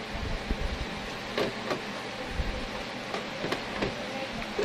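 Scattered light clicks and a few dull bumps of a screwdriver and hands working on an Epson LX-310 dot-matrix printer's case while its cover screws are taken out, over a steady background hiss.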